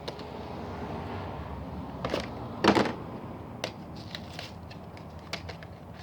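Plastic packaging of a HeroClix booster pack being handled: crinkling and rustling, then a few sharp clicks and snaps, the loudest a little past two and a half seconds in.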